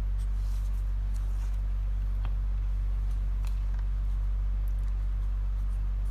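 Pen writing on paper, a few faint short strokes and taps, over a steady low electrical hum that is the loudest thing heard.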